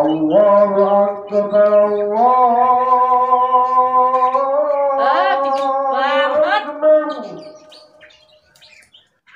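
A single voice singing long held notes that step up in pitch about two seconds in, with the vowel sound shifting around five to seven seconds in before it fades out.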